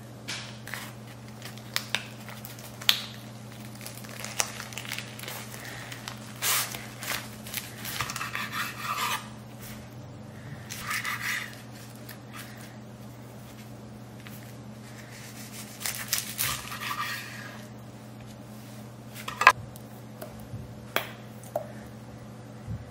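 Kitchen food-prep sounds on a wooden cutting board: clicks and taps of chopsticks and utensils, and a knife slicing through a seaweed-wrapped kimbap roll in a few short scraping strokes, over a steady low hum.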